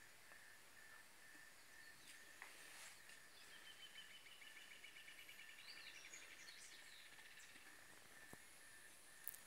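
Near silence: faint room tone, with a faint run of rapid high chirps from about three to six seconds in.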